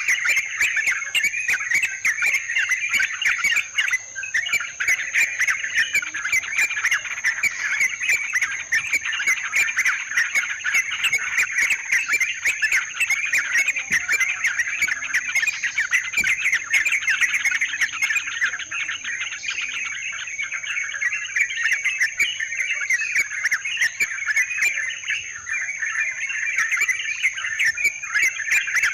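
Yellow-vented bulbuls (trucukan) chattering and singing without pause, many quick overlapping calls over a steady high-pitched tone.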